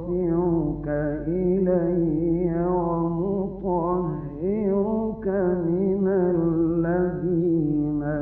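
A man reciting the Quran in the melodic mujawwad style, drawing out the verse in long ornamented notes whose pitch wavers and glides, with a few short breaks for breath. A steady low hum lies under the voice.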